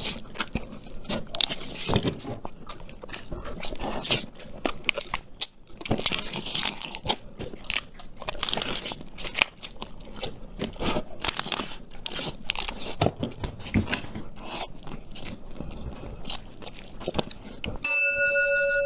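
Close-miked eating: crunchy bites and chewing of food, with many short, sharp crackles throughout. Near the end a steady tone takes over.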